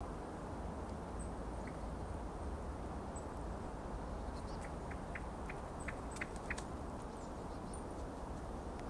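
Steady low outdoor background noise, with a quick run of about eight short, high ticks or chirps near the middle.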